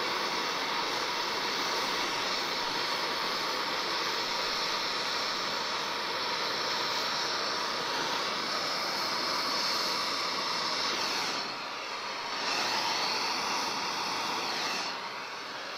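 Propane torch flame hissing steadily as it heats an aluminium tube joint for brazing with low-temperature aluminium rods. The hiss dips briefly about two-thirds of the way through.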